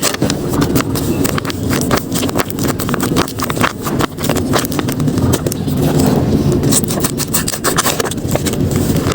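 Paper crinkling and rustling in quick, irregular crackles as handmade paper blind bags are opened, over a steady low rumble.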